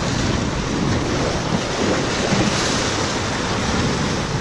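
Small waves washing and splashing against the boulders of a rock jetty, with wind buffeting the microphone.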